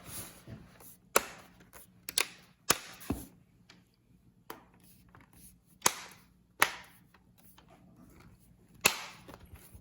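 Plastic snap clips of an HP 3168NGW laptop's back cover clicking into place as the cover is pressed down around its edge: about eight sharp clicks at uneven intervals.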